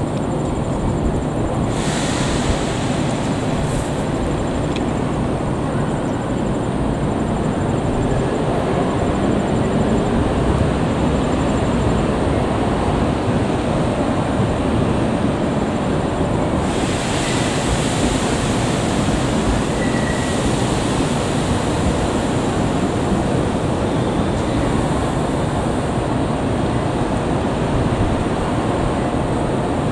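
A freight train rolling past: a steady, loud rumble of wheels on the rails, with a brighter hiss that swells about two seconds in and again around the middle.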